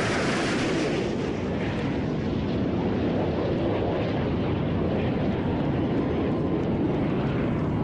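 Boeing 787 Dreamliner's twin jet engines at takeoff power: a loud, steady roar. After the first second or two the high hiss fades and a deep rumble carries on.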